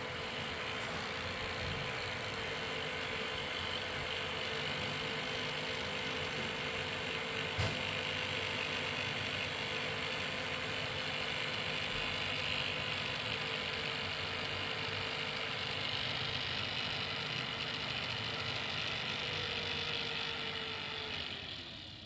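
Noisy cooling fan running with a steady whirr and a steady hum-like tone, with a single sharp click about eight seconds in. Near the end the tone slides down in pitch and the sound fades as the fan slows.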